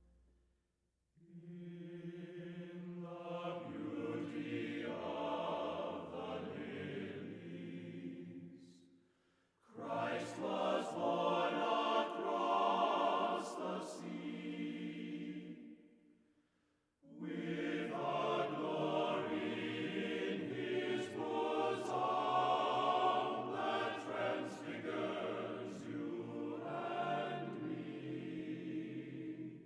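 Background choral music: a choir singing in three long phrases, with short pauses between them.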